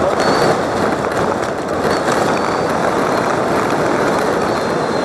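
Steady crowd and gym noise at a basketball game, with several short, high sneaker squeaks on the court.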